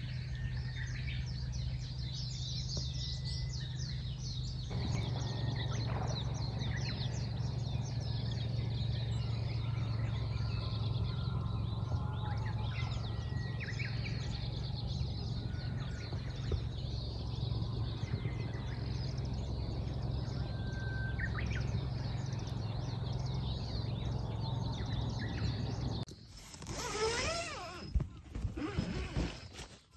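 Birds chirping and calling, many short high notes, over a steady low hum; near the end the sound changes to louder swooping calls and rustling.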